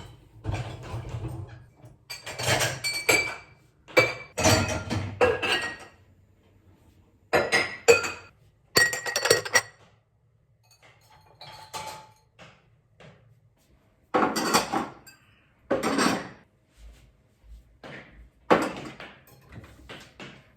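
Glasses and dishes clinking and clattering in a string of separate bursts with short pauses between them. Some strikes leave a brief ringing tone.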